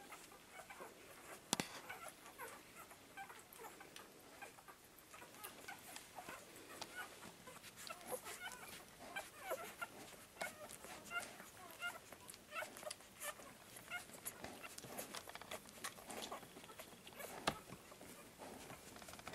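Newborn Bearded Collie puppies squeaking in many short, scattered chirps while suckling from their mother. A sharp click about a second and a half in and another near the end are the loudest sounds.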